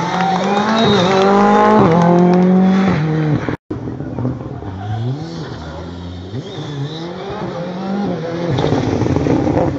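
Rally car engine revving hard close by, its pitch climbing and then dropping in steps with the gear changes. After a brief cut in the sound about three and a half seconds in, a rally car engine is heard further off, rising through the gears and getting louder near the end.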